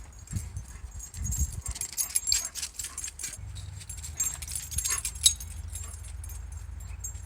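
A dog moving about with its metal collar tags jingling in quick irregular clinks, over a low steady rumble that starts about three and a half seconds in.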